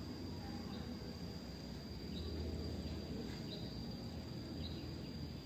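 Outdoor ambience: a steady, high-pitched insect drone, with short chirps repeating about once every second or so, over a low background rumble.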